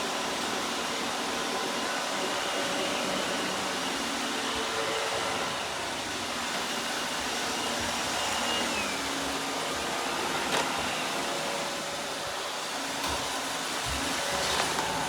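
iRobot robot vacuum running: a steady whir of suction and brushes with shifting motor tones, and a sharp click about ten seconds in.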